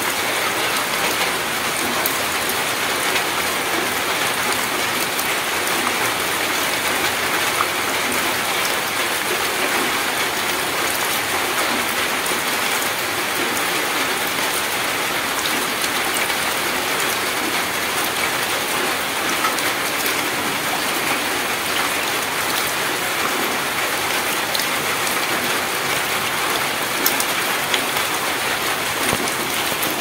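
Drizzle falling into a muddy puddle: a steady, even patter of rain with many small drop ticks.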